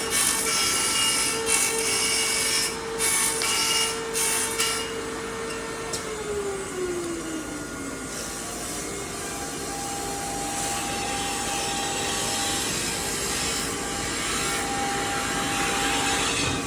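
CNC machine running: a steady whine over a rough, hissing cutting noise, the whine sliding down in pitch about six seconds in.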